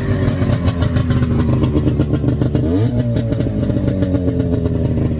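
Old snowmobile engine running just after starting, idling as it warms up. Its pitch rises about three seconds in and holds higher.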